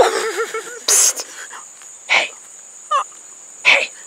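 Crickets chirping in a steady high trill, with short swishing noises about one, two and nearly four seconds in.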